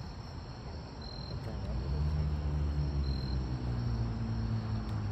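An insect, cricket-like, chirps a short high note about every two seconds over outdoor background hiss. From about a second and a half in, a louder low droning hum with several pitches swells up and holds.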